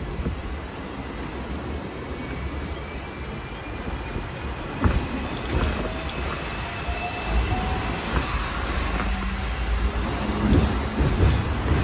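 Hong Kong double-decker electric tram running on its street track: a steady rumble with a few sharp wheel-on-rail clicks about halfway through, and a faint, slowly rising wheel squeal in the middle.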